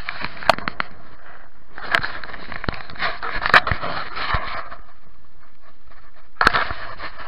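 Scratchy rustling and scraping of clothing against a body-worn camera as the wearer shifts about in a boat, with a few sharp clicks and knocks, in three spells.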